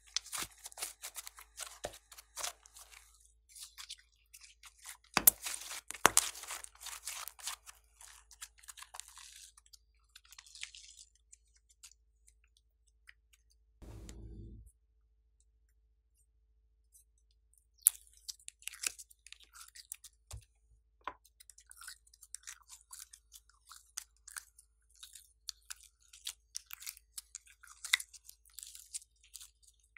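Glossy slime squeezed and kneaded by hand, crackling with dense runs of small clicks and pops. The crackling stops for several seconds near the middle, with one brief low bump, then starts again as slime is worked out of a plastic mold.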